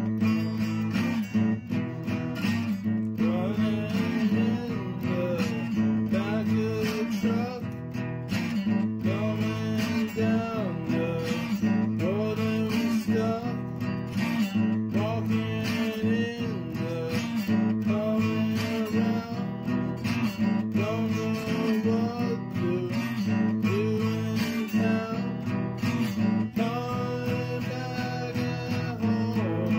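Music: a strummed acoustic guitar song, with a wavering melody line over steady low notes.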